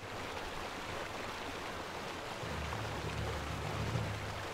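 Small waterfall and stream rushing steadily into a pool. A faint low hum comes in about halfway through.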